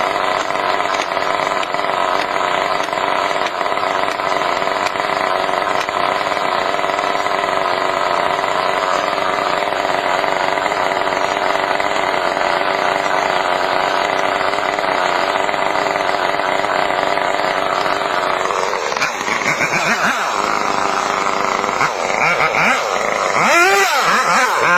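Chainsaw engine running at a steady speed. About three-quarters of the way through it gives way to a different sound with quick rising and falling sweeps.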